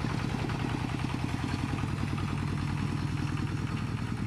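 A two-wheel walking tractor's single-cylinder diesel engine running with an even, rapid chug as it pulls a loaded wooden trailer.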